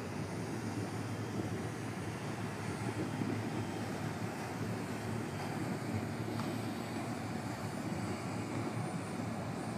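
Steady low rumble with a faint high whine above it, as an electric E-flite Carbon Cub RC model floatplane flies overhead.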